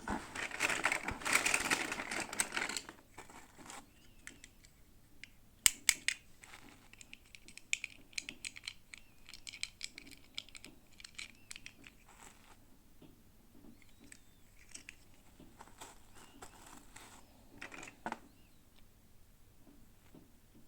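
Miniature toy packaging being opened by hand: a loud tearing and crinkling of plastic wrap for about the first three seconds, then scattered small clicks, taps and rustles as the pieces are handled.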